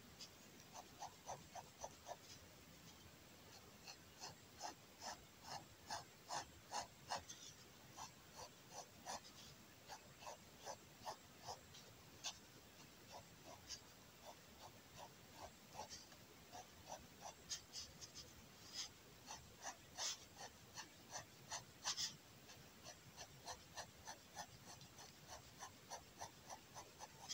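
Faint scratching of a fine liner pen's tip on kraft paper, drawing short hatching strokes two to three a second to build up shading tone.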